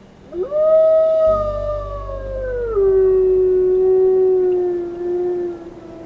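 Indian wolf howling: one long howl that rises quickly, holds, then steps down to a lower pitch about halfway through and holds there before fading out near the end.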